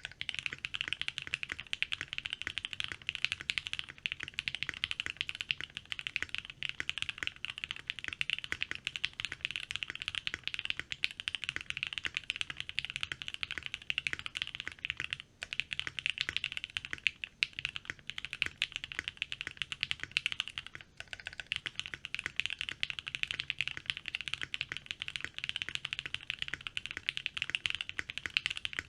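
Fast continuous typing on a Think6.5 V2 mechanical keyboard with lubed and filmed C3 Tangerine linear switches and PBT keycaps, modded with switch pads and painter's tape for a creamier, less high-pitched sound. Brief pauses in the typing about 15 and 21 seconds in.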